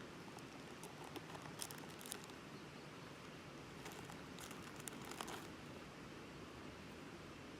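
Plastic snack packaging being handled and crinkling, in two spells of short sharp crackles, about a second and a half in and again around four to five seconds in, over a steady faint hiss.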